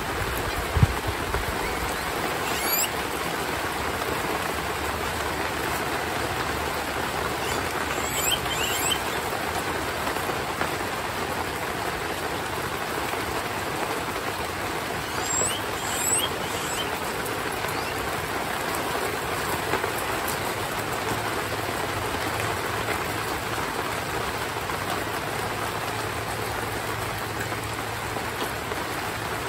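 Heavy rain falling steadily, with a few faint, short high chirps over it.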